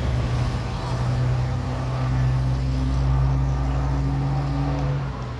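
Road vehicle engine running close by: a steady low hum with a faint haze of traffic noise, easing slightly near the end.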